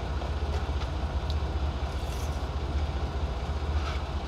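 Steady low rumble of an idling vehicle engine heard inside the cab, with a few faint utensil clicks as food is spooned into a bowl.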